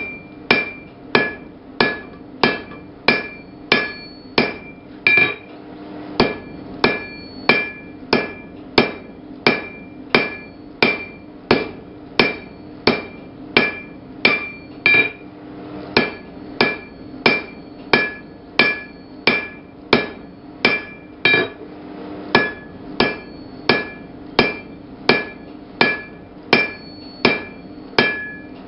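Blacksmith's hammer striking hot steel on an anvil in a steady rhythm, about two blows a second, many of them with a bright ring from the anvil. The rhythm breaks briefly twice, about halfway and two-thirds through.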